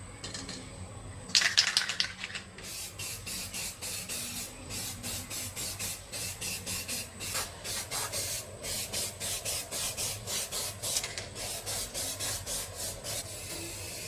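A brief loud clatter about a second in, then steady rhythmic rubbing strokes by hand, about three a second, like scrubbing or sanding a part, stopping near the end.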